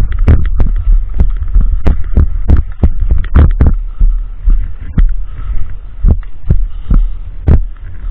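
Irregular sharp knocks and thuds, several a second, over a steady low rumble: the handling, movement and gear noise of a player's body-worn camera during airsoft play.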